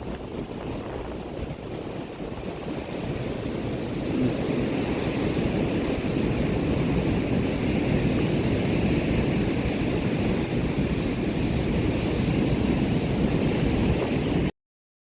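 Surf breaking on the shore, with wind rumbling on the microphone. The noise swells about four seconds in and cuts off suddenly near the end.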